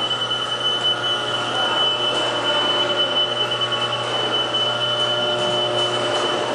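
Milking parlor machinery running: a steady mechanical drone with a constant high-pitched whine.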